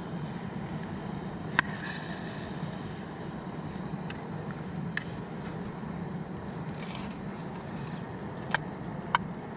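A few sharp clicks of a utensil against a metal camping pot as food is eaten from it, the first about a second and a half in and two more close together near the end. Under them runs a steady low rushing noise.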